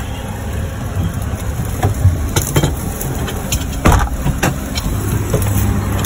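A vehicle engine running with a low, steady rumble, heard from inside a car with the window open. Scattered knocks and thumps break through it, the loudest about four seconds in.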